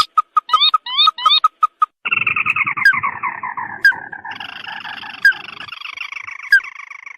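Recorded crake calls played as a trapping lure: a quick series of short pips with rising notes, then from about two seconds in a dense, harsh chattering trill that slides down in pitch and steps up again to a higher trill near the end.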